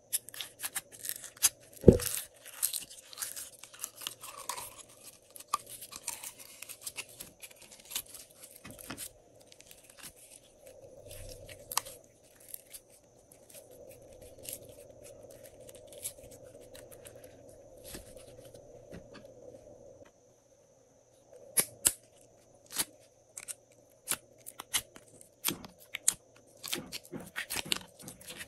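Slime being handled by hand: sticky clicks and crackling pops as glossy slime is stretched, pressed and pulled from its tubs. One loud thump comes about two seconds in, and the clicks thin out for a while in the middle before picking up again near the end.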